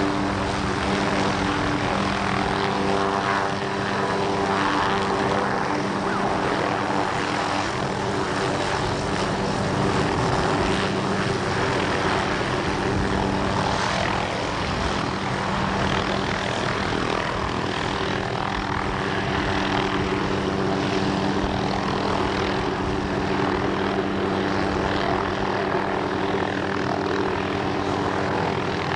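Hughes OH-6 light helicopter's turboshaft engine and rotors running steadily with an even hum as it lifts off from the ramp and hovers.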